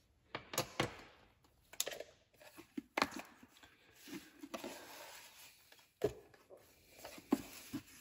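Crinkle-cut paper shred filler and a cloth pouch rustling as they are handled inside a cardboard knife presentation box, with scattered light knocks and clicks from the box.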